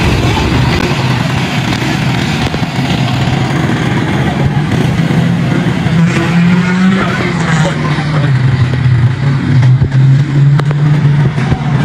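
Small vehicle engine running under way, its pitch climbing about six seconds in, then settling lower and holding steady.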